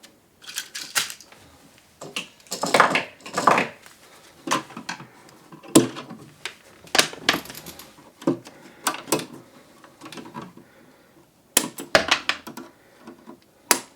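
Irregular small clicks, snips and scrapes of electrical wire being handled and worked with hand tools.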